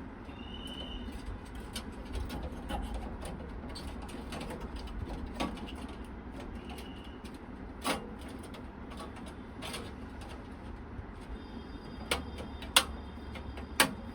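Scattered clicks and taps of computer parts and screws being handled while a motherboard and its components are fitted into a PC case. There are a few sharper clicks about 8 s in and near the end, over a low steady hum.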